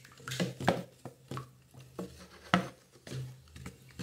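Wooden spoon knocking and scraping against the sides of a plastic bucket while stirring a little oil and alcohol, in irregular clacks with two louder knocks, about a second in and halfway through.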